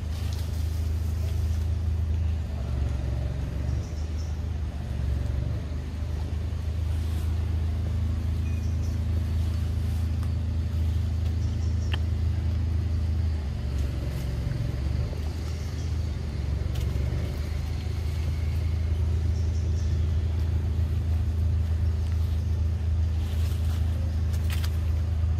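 A steady low mechanical hum, with a few faint clicks over it.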